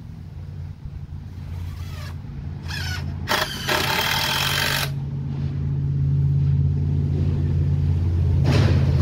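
A motor or engine running steadily with a low hum, growing louder. A little over three seconds in there is a loud hiss lasting about a second and a half.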